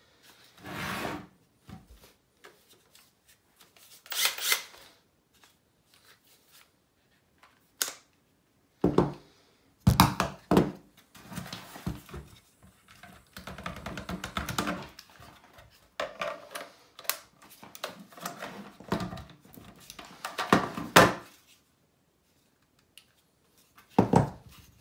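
Hard plastic Milwaukee M18 battery and charger handled on a wooden tabletop: irregular clicks, knocks and scraping as the battery is taken off the charger and set down on the wood.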